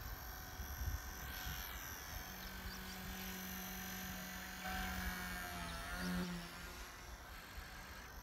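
XK K110 micro RC helicopter flying: a high rotor-and-motor whine that dips and rises in pitch about a second in, with a steadier lower hum through the middle as it manoeuvres. Its drive gears make a noise that the pilot finds too loud.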